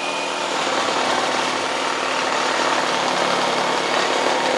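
Hilti SR 6-A22 22-volt cordless reciprocating saw cutting through a 4x4 wooden post at full speed, a loud, steady sawing.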